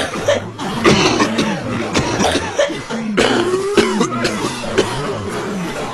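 A crowd of people coughing over one another, repeated sudden coughs with some throat clearing.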